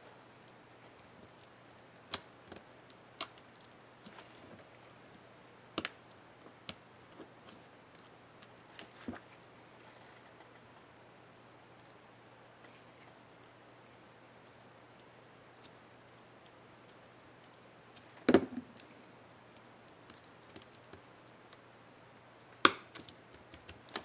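Small plastic clicks and snaps from an HP Mini 5101 laptop keyboard as an Alt keycap and its scissor retainer clip are pressed into place. The clicks come singly and unevenly, with the two loudest snaps in the second half.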